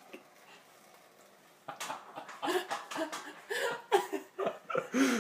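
A person laughing in short, repeated bursts, starting after about a second and a half of quiet.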